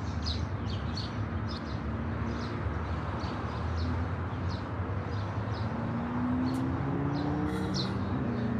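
Outdoor street ambience: small birds chirping in short, irregular calls over a steady low rumble of traffic.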